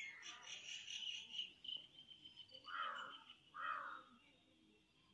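Birds chirping over a steady, high-pitched insect trill that fades out about four and a half seconds in. Two short rasping sounds come near the middle.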